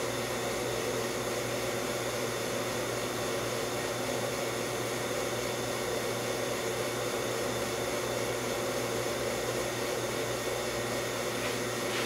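Steady whir and hum of a running machine, even and unchanging, with a few constant tones under a hiss of moving air.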